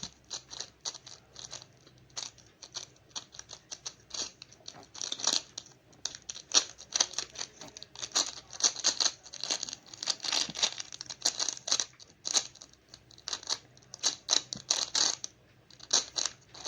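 Plastic 3x3 Rubik's cube being scrambled by hand: rapid irregular clicking and clacking as its layers are twisted, several turns a second, with short pauses between runs of turns.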